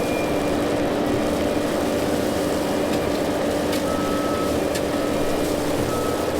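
Diesel engine of a bucket-equipped earthmoving machine running steadily at a constant pitch.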